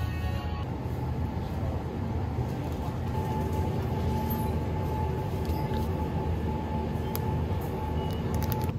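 Steady low rumble of background noise, with a faint steady high tone coming in about three seconds in and a few light clicks near the end.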